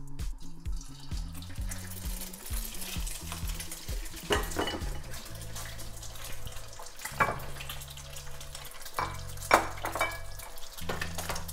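Two eggs frying in very hot oil in a wok: a steady hissing sizzle that builds as they hit the oil, with a few sharp pops and spits, the loudest about nine and a half seconds in.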